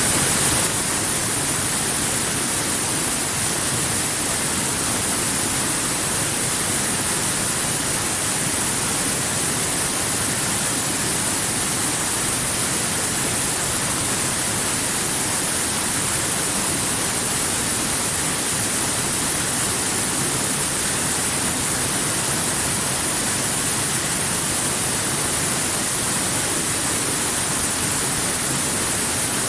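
Waterfall: falling water rushing steadily, an even hiss-and-rush with no changes.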